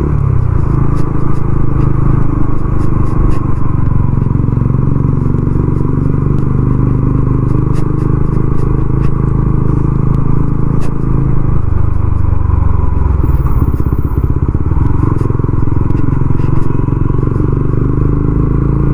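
TVS Ronin 225's single-cylinder engine running steadily under way, mixed with road and wind noise. The engine note shifts a little about two-thirds of the way through.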